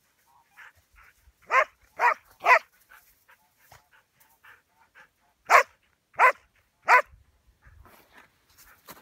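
A dog barking in two runs of three short barks, about half a second apart, the second run some three seconds after the first.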